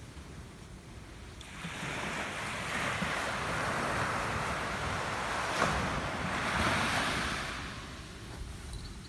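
A wave washing in on the beach. The surf noise swells up about one and a half seconds in and dies away near the end, with a single click in the middle.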